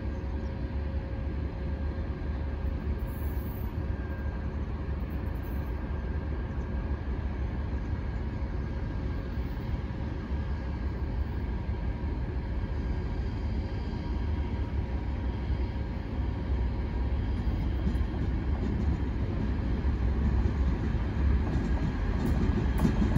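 TEP70BS diesel locomotive running with a steady low engine rumble and a few faint steady tones above it, growing gradually louder over the last few seconds.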